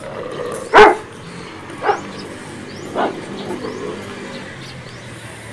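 A dog barking three times, about a second apart, the first bark the loudest and the later ones fainter.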